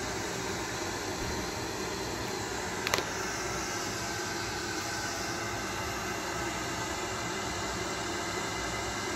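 Steady background hiss with a faint hum, and a single short click about three seconds in as a DVD case is handled.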